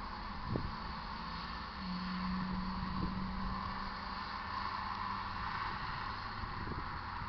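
Railroad crossing signal sounding as its gate arms lower: the warning bell rings steadily over a low hum, with a few short clicks from the gate mechanism.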